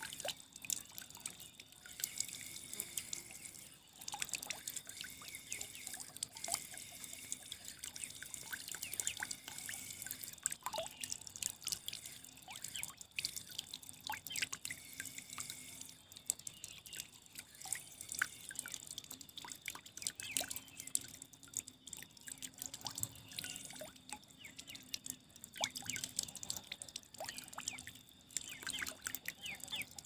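Water trickling and dripping: a dense, irregular patter of small drips and splashes.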